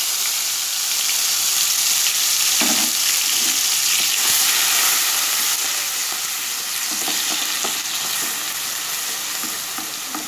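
Onion paste sizzling hard in hot mustard oil in a steel pan, the fresh wet paste spitting as its moisture boils off in the oil. A wooden spatula stirs it, scraping the pan a few times, and the sizzle eases slightly near the end.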